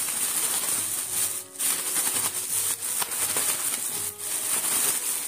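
Thin plastic bag crinkling and rustling as the chicken breast inside is shaken and kneaded to coat it with salt and potato starch, with a few short pauses.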